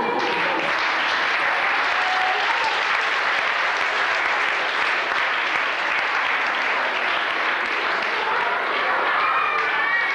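Audience applauding steadily, with a few voices audible over the clapping near the end.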